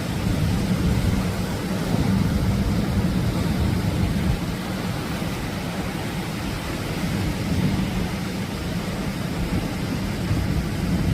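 Atlantic surf: a steady low rumble of waves breaking and washing in, swelling a little now and then.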